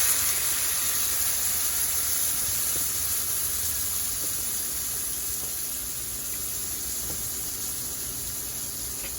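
Hot pot of browned chicken sizzling and hissing with steam after the water rinsed from the seasoning bowl goes in, the sizzle slowly dying down.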